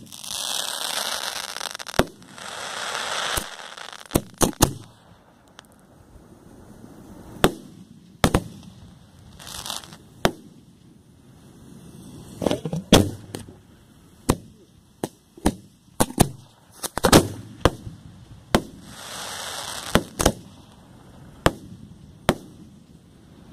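Aerial fireworks going off close by: an irregular series of sharp bangs, some in quick clusters, with three stretches of hissing between them.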